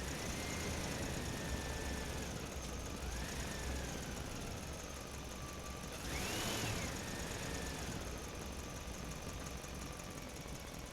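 Diesel engine of heavy earth-moving machinery running with a low rumble and a whining tone that rises and falls, climbing highest and getting loudest about six seconds in.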